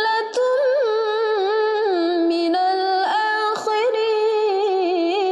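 A woman reciting the Quran in a slow murottal style in maqam bayyati, drawing one phrase out in a long melismatic line with wavering, ornamented pitch and a few brief breaks.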